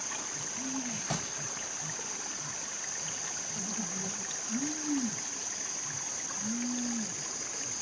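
Forest ambience: a stream running under a steady high-pitched insect drone. A few short low calls rise and fall in pitch, one near the start and a couple in the second half.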